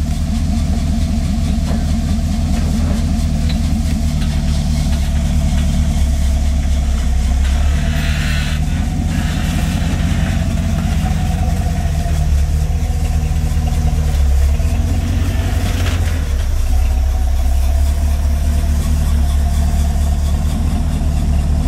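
Early Ford Bronco's engine running steadily at low revs as the truck crawls over rock.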